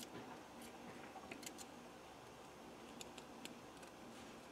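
Faint, scattered light clicks of a steel piston ring being worked by hand into its groove on a piston.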